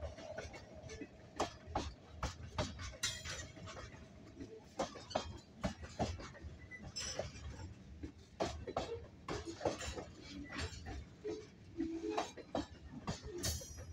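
Freight cars of a passing train rolling slowly by: irregular metallic clicks and clanks from the cars' wheels on the track, over a low rumble. A faint steady squeal in the first few seconds.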